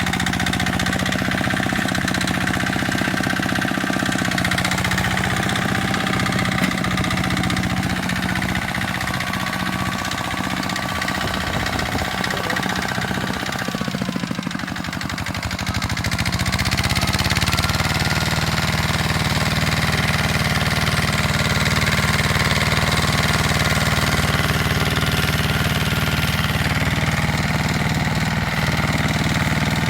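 Tractor engine running under load; about halfway through its pitch sags briefly, then picks back up and settles into a steady, slightly louder run.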